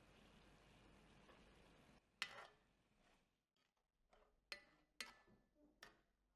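Faint steady hiss of sauce simmering in a cast-iron skillet, which stops about two seconds in. Then a metal spoon clinks against the pan several times while spooning sauce over the meat, the first clink the loudest.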